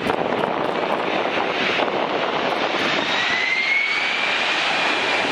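Boeing 747-400 freighter's four jet engines running at high power as it rolls down the runway: a loud, steady rush with a whine that rises slightly in pitch about three seconds in.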